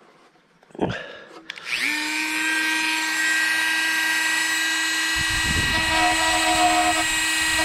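Dremel rotary tool switched on about a second and a half in, spinning up to a steady high whine. From about five seconds its bit grinds into the fiberglass fender's edge, adding a rough grinding noise, carving a channel to recess wiring.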